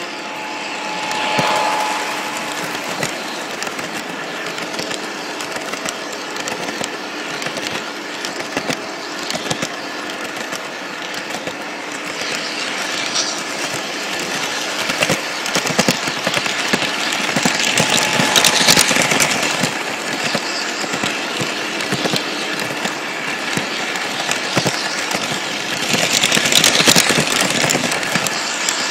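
Lionel toy train running on its track, heard from a car riding along with it: steady rattling and clicking of wheels over the rails under a faint hum. The clatter swells about two-thirds of the way through and again near the end.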